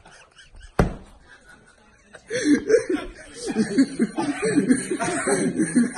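A single sharp thump a little under a second in, then a person laughing hard from about two seconds on.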